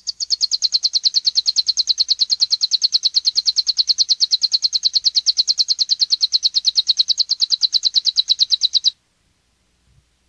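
Saffron finch (canário-da-terra, magnata de Guariba type) singing its 'metralha' (machine-gun) song: one long, fast, even trill of high notes, about nine a second, that stops abruptly about nine seconds in.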